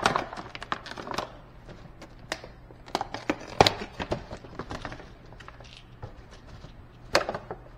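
Clicks, knocks and rattles of a clear plastic storage box being handled as foam roller covers are taken out of it, with a sharp click about three and a half seconds in and another near the end. A steady low hum sits underneath.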